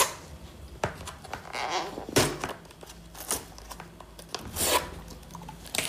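Paper wrapping on a box being handled and torn open by hand: irregular rustling, rubbing and ripping strokes, about half a dozen of them.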